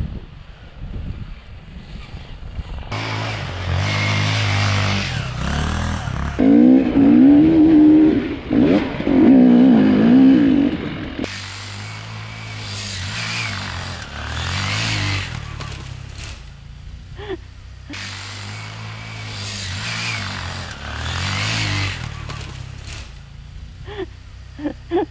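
Enduro motorcycle engine revving hard off-road, over and over. The revs climb and fall repeatedly and are highest and loudest in a long burst of throttle near the middle. In between it drops back to low revs, with a few short clicks near the end.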